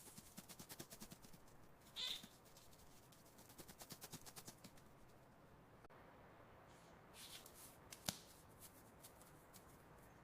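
Faint mouse sounds: quick runs of tiny scratching ticks, a short high-pitched squeak about two seconds in, and a single sharp click near the end.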